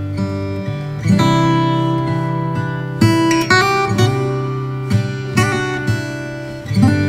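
Background music: an acoustic guitar strumming chords, each chord ringing out before the next stroke.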